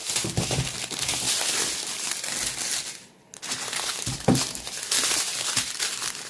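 Small plastic bags of diamond painting drills crinkling as they are handled and sorted, with a brief pause about halfway through.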